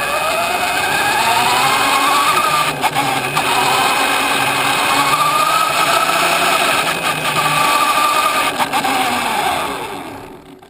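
Radio-controlled car driving fast over pavement: its motor and gears whine, the pitch rising as it speeds up, dipping and rising again with the throttle, then falling and fading near the end as it slows, over the rush of the tyres, with a few sharp knocks from bumps.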